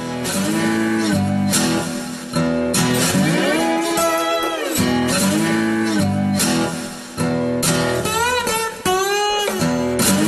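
Background music: acoustic guitar strummed in a bluesy style, with notes bending up and down about eight seconds in.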